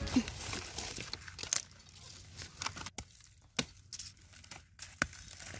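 Machete chopping into soil and cassava roots amid dry leaves and stems: irregular sharp knocks with crackling and rustling.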